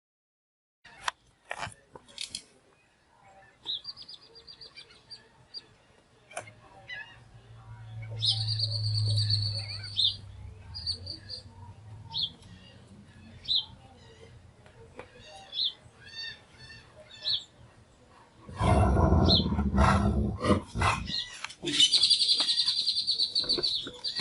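Birds chirping and calling with many short high chirps. About three-quarters of the way through there is a loud harsh burst, followed by a long high call near the end.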